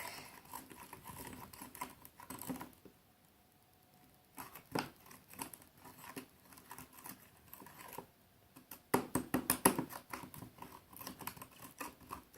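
Irregular clicking and tapping of a utensil stirring borax into hot water in a cup, knocking against the container's sides. It pauses briefly early on, then has a run of quicker, louder taps about nine seconds in.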